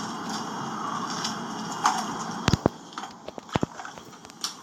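A steady hiss, then a few sharp, separate clicks and knocks in the second half, two of them with a low thump.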